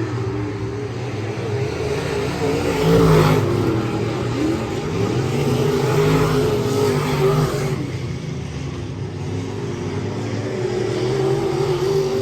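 Race car engines running hard on track, several engines at once, their pitch rising and falling as they accelerate and lift.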